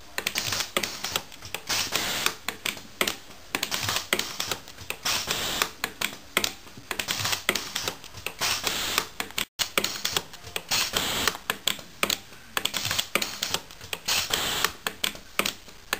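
Pulse TIG micro-welder firing spot welds: an irregular rapid series of sharp snaps, several a second, over a steady hiss, with a brief break about halfway through.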